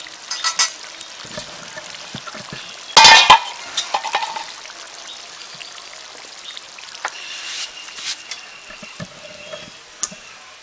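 Beef and jackfruit-seed curry bubbling in a large metal pot, with scattered small pops and clicks. A short clatter comes just after the start, and a louder one about three seconds in.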